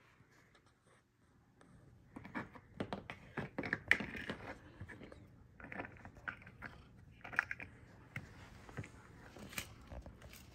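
Chunky plastic building bricks clicking and knocking together and against a tabletop as they are handled and pressed together. The clicks are quick and irregular and start about two seconds in.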